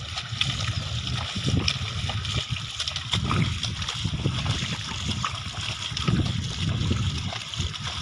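Two bullocks wading and hauling a wooden plough through flooded mud: uneven splashing of hooves and ploughshare in water and mud.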